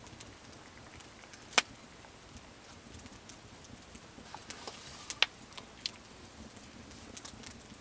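Quiet background with a steady faint high hiss and a few scattered sharp clicks and taps, the loudest about a second and a half in and another a little past five seconds.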